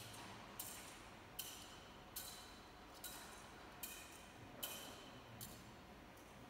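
Thurible swung to incense the elevated host, its metal chains and bowl clinking once per swing: about eight evenly spaced metallic clinks, each ringing briefly, stopping about five and a half seconds in.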